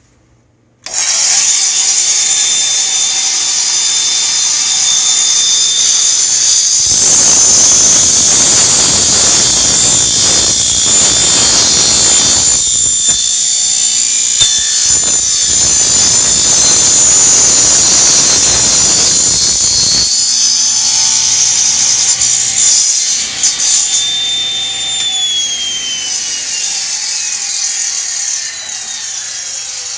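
Table saw starting up about a second in and running with a high whine. From about seven to twenty seconds the blade cuts through wood, then runs free. Near the end the saw is switched off and the whine falls as the blade spins down.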